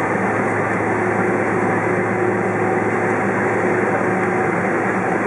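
Steady cabin noise of a Boeing 767-400ER taxiing, its turbofan engines running at low power and heard through the fuselage as a constant low hum with faint steady tones.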